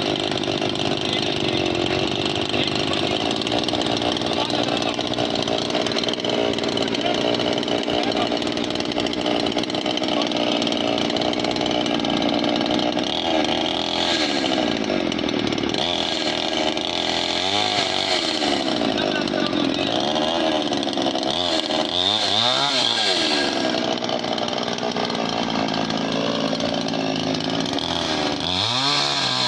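Daewoo petrol chainsaw's two-stroke engine running steadily, then revved up and back down several times in the second half, with another rev rising near the end.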